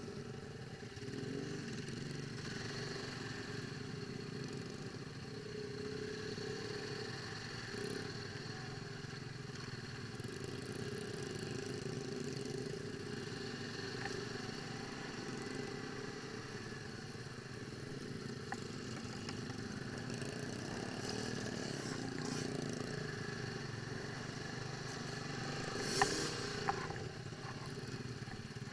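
ATV engines running, their pitch rising and falling gently, with a sharp knock near the end.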